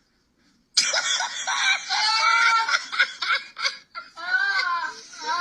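Wheezing laughter: a person laughing hard in breathy, squeaking gasps, starting suddenly less than a second in after near silence, with a short break for breath near the end.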